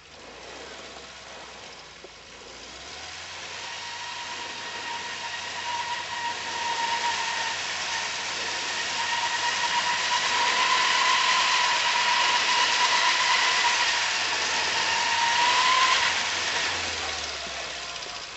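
Pinzgauer all-terrain truck's engine working as the truck climbs through deep snow, getting louder as it draws near, with a steady high whine. The whine rises briefly and the sound eases off near the end.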